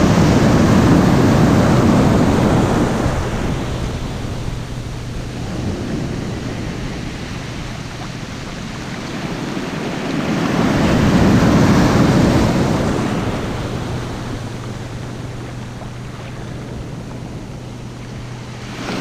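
Ocean surf breaking and washing up the shallows, a steady rushing that swells loud twice, at the start and again about ten seconds in.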